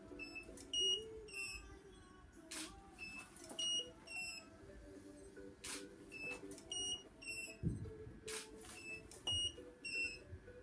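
Studio photo shoot: a camera shutter and studio flash fire three times, about three seconds apart. Each shot is followed by a few short high electronic beeps from the flash heads signalling they have recycled and are ready.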